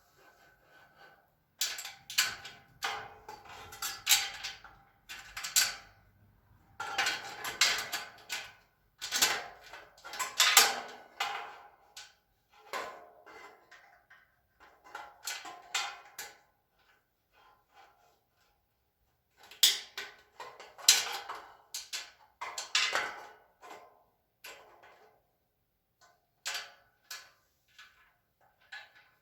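Metal shelf brackets and screws clinking and rattling as they are handled and fitted, in bursts of a second or two with short pauses.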